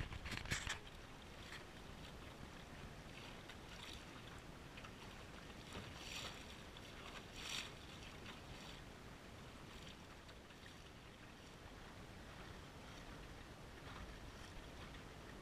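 Water lapping and splashing against the hull of a Fusion 15 sailing dinghy under way, over a low steady rush of wind and water. A couple of sharper splashes come around the middle.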